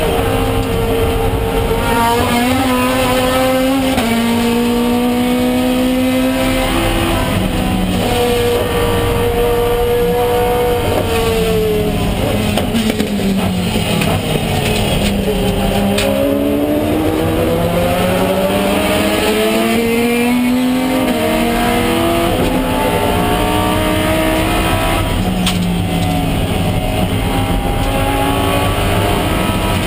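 Race car engine heard from inside the cockpit, revving up through the gears with a drop in pitch at each upshift. Around the middle the pitch falls away as the car brakes and shifts down, then it climbs through the gears again.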